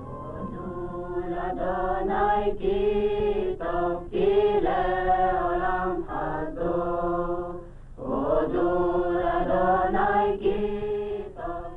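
A choir singing a Jewish religious chant in long sung phrases with held notes, pausing briefly about eight seconds in.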